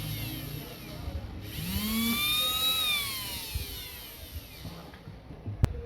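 Small 775 12 V DC motor whining at high speed, switched on twice: the first run winds down, and the second spins up then coasts down with falling pitch. A sharp click comes near the end.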